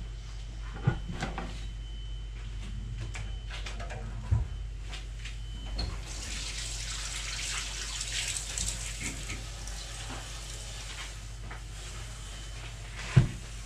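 Water running from a tap into a sink for about five seconds, starting about six seconds in. A few sharp knocks stand out, the loudest near the end.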